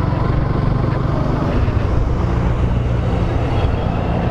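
Motorcycle engine running steadily while riding, with an even low pulsing throb.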